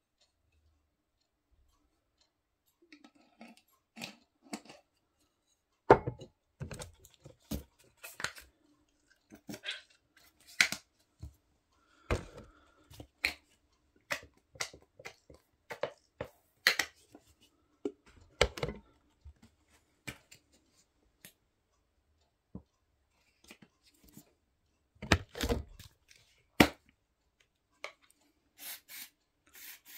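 Plastic squeeze bottle of sauce being squeezed and squirted into a pair of trainers: irregular crackles and clicks from the bottle and the sauce coming out, starting a few seconds in, with a few louder clusters.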